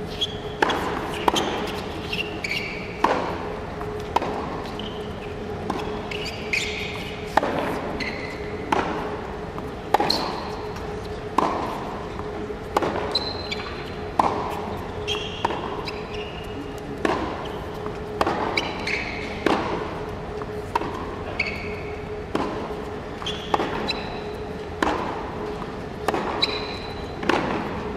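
Tennis ball being struck by rackets and bouncing on a hard court in a long rally, a sharp pock about every second. Short shoe squeaks on the court come between many of the hits, over a faint steady hum.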